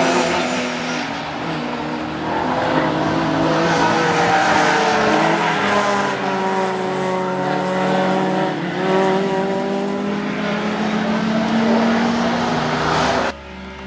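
Classic race cars, a Datsun 240Z among them, running hard through a corner one after another, several engine notes rising and falling as they pass and change gear. The sound drops sharply near the end.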